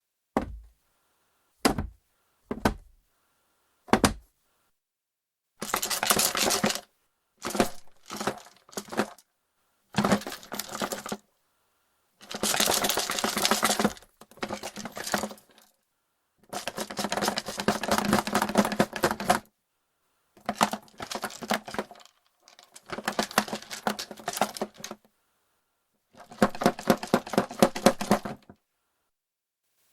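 Wooden board-game box with plastic game pieces inside: a few single knocks first, then the box shaken in repeated bouts of a second or three, the pieces rattling against the wood, with short pauses between.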